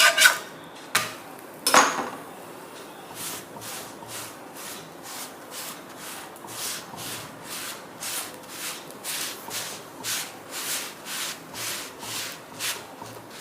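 A cloth rubbing and pressing a roti on a chapati griddle in short strokes, about two a second, after a few knocks in the first two seconds as the roti is turned over.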